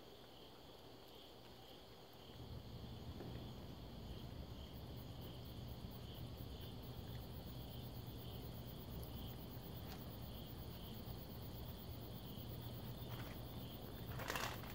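Crickets chirping in a steady, pulsing high trill, over a low steady hum that comes in about two seconds in. Near the end there is a short, louder rustling clatter.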